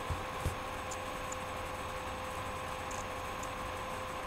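Steady hiss of room tone and recording noise with a faint steady hum, and a few small clicks in the first half-second.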